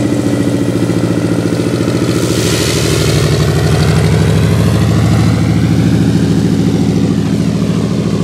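Cessna T207's turbocharged six-cylinder piston engine and propeller running at power as the plane rolls past along a dirt strip. The propeller hiss swells as it passes closest about three seconds in, then eases as it moves away.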